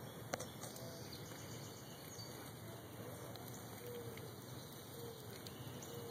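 Quiet outdoor background with faint short chirping calls repeating every second or so. A single sharp click comes just after the start.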